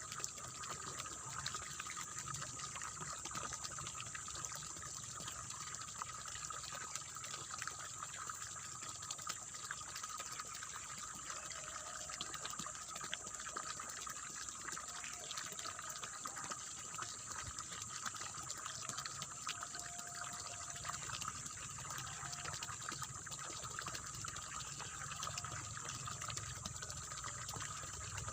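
Water in a rice paddy splashing and babbling steadily, an even rushing sound with fine crackle throughout.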